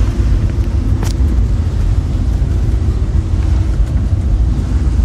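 Motor vehicle running with a steady low rumble, and a single sharp click about a second in.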